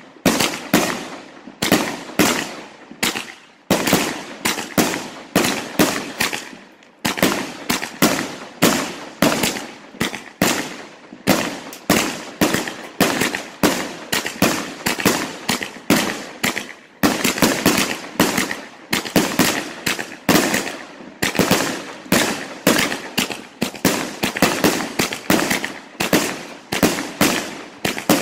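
Multi-shot aerial firework firing shot after shot in steady succession, about two sharp bangs a second.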